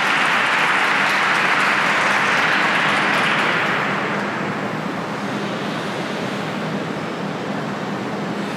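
Arena crowd applauding, dying away about three and a half seconds in, leaving a steady low hum of the ice rink.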